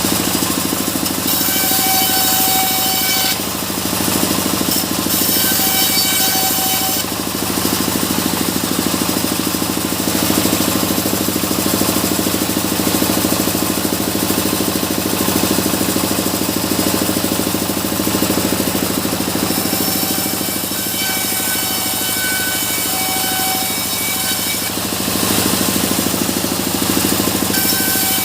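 Sawmill saw and its drive running steadily while cutting mahogany. There are spells with a high-pitched ringing whine: three of them, near the start, about five seconds in, and through the last third.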